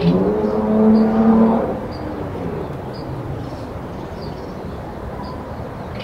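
A vehicle engine's drone steps up in pitch, holds for about a second and a half, then fades away. Throughout, a small bird repeats a short, high chirp about every half second.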